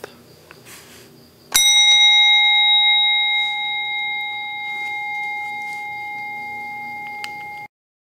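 A bell struck once about a second and a half in. It rings on in a few steady, clear tones that fade slowly, then cuts off suddenly near the end.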